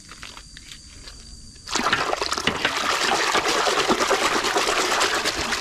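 Muddy water splashing and sloshing in a large washbasin as a toy is plunged in and swished around. It starts suddenly about two seconds in after a quiet start and keeps going.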